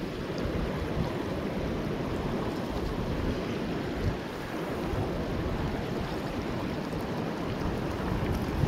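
Shallow river rushing over stones, a steady rushing noise.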